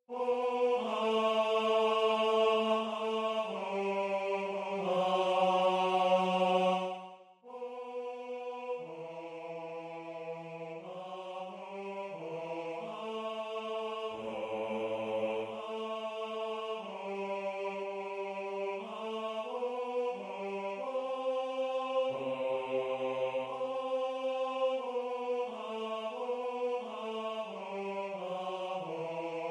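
Computer-rendered choir from score playback, a mixed SATB chorus on sustained sung vowels with no words, the bass part being the one to follow. The chords move from note to note. It is loud at first, breaks off briefly about seven seconds in, then goes on softer.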